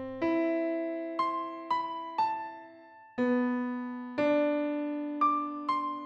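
Background music: an electric piano playing a slow tune of struck notes, each left to ring and fade.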